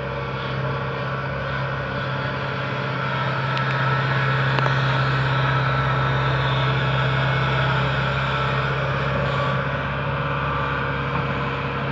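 Rice combine harvester's engine running steadily with a low, even hum, getting a little louder through the middle and easing off again.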